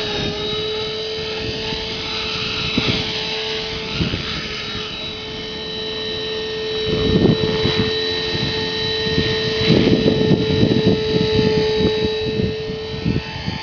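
Electric Blade 400 RC helicopter flying, its motor and rotor whine holding a steady pitch. Wind buffets the microphone in rumbling gusts, heaviest about halfway through and again a few seconds later.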